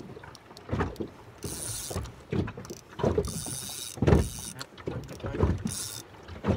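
Fishing reel whirring in three short bursts a couple of seconds apart while a hard-fighting kahawai is played on the rod, with dull knocks in the boat in between.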